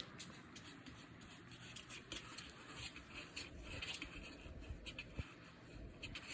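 Shiba Inu puppies pawing and scrabbling at a cardboard box: quiet, irregular scratching and light scraping on the cardboard, with a few sharper ticks.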